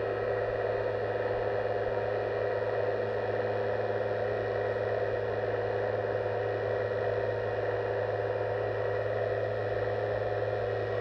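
Small electric hydraulic pump of an RC scale excavator whirring steadily at constant speed, a low hum with a higher whine over it.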